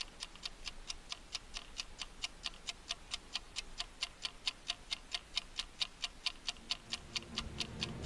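Ticking-clock sound effect, even sharp ticks about four a second. A low swell starts rising in under the ticks near the end.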